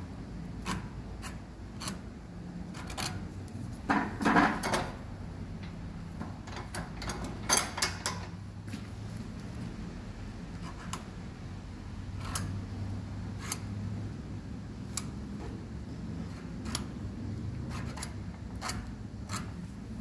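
Rubber outer cover of a two-wire hydraulic hose being scraped and peeled off with an old hacksaw blade, down to the steel wire braid: scattered scrapes and clicks, louder about four seconds in and again near eight seconds, over a steady low workshop hum.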